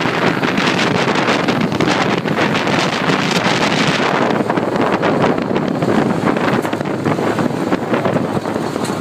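Wind buffeting the microphone of a moving Kawasaki Mule 610XC utility vehicle, a loud steady rush that mostly covers the vehicle's own running. The rush eases slightly about four seconds in.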